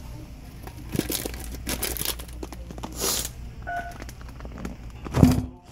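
Close rustling and crinkling handling noises, with a short beep about four seconds in and a loud bump against the microphone near the end.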